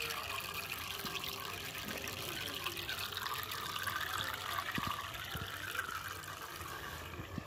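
Aquarium internal filter returning water to the tank, a steady splashing and trickling at the water surface.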